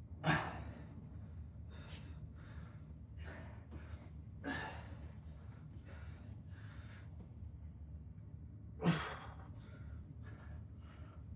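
A man breathing hard from exercise exertion, with heavy, noisy breaths. Three of them, about four seconds apart, are much louder than the fainter breaths in between. A steady low hum runs underneath.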